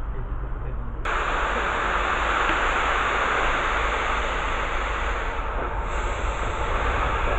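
Steady rumble and hiss of a moving train, with wind on the microphone; the hiss turns brighter about a second in.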